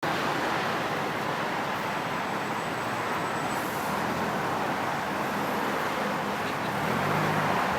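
Steady road traffic noise: a continuous rush of passing vehicles on a roadway, with a low engine hum rising slightly near the end.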